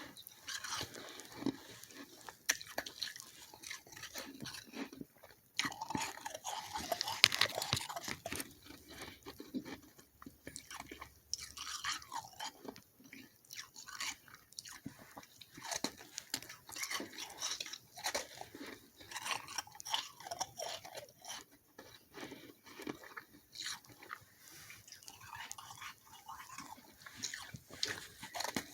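Close-up chewing of soft freezer frost: repeated soft, slushy crunches as the ice is bitten and ground between the teeth, with a louder run of crunches about six to eight seconds in.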